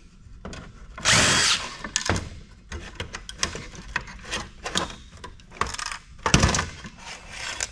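A power driver fitted with a 1/4-inch socket whirs briefly about a second in, spinning out a fastener, followed by light clicks and knocks of metal parts being handled and a heavier knock near the end.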